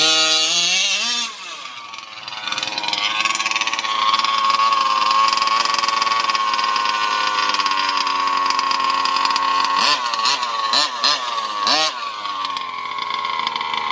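Small two-stroke gas engine of an RC car running hard, its pitch rising and falling at first, then held high and steady, with several quick throttle blips about ten seconds in before it settles lower. It runs without starving for fuel, the tank now vented through a chainsaw one-way breather.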